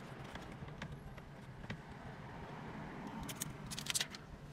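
Plastic dashboard trim panel with climate-control knobs being pushed into place: a sharp click at the start, scattered plastic clicks and rattles, and a cluster of louder snaps about three and a half to four seconds in as its clips seat.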